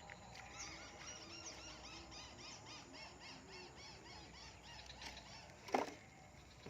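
A bird chirping in a quick run of high chirps, about five a second, that stops about two seconds before the end. A single sharp knock comes near the end.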